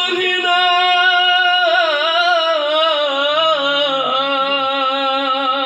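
A man singing through a microphone in a long, unbroken, melismatic line, the pitch wavering and sliding through ornaments without a break for breath.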